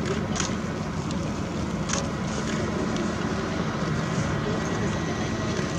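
Steady low engine or machinery hum with a faint high whine, likely ground equipment or a vehicle on the flight line, with wind on the microphone; two short clicks in the first two seconds.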